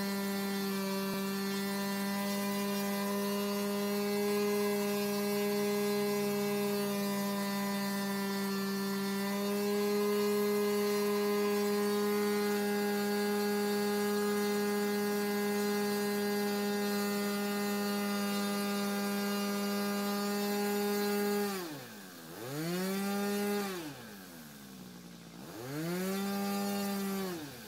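RC model airplane engine running at a steady high speed on the ground. About three-quarters of the way in it is throttled back to idle and run up twice, its pitch falling and rising each time: a ground run-up before takeoff.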